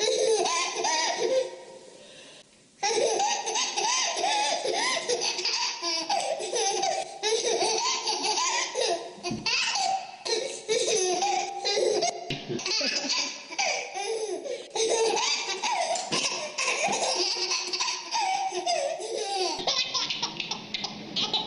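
A baby laughing, long bouts of high-pitched belly laughs and giggles, with a short pause about two seconds in.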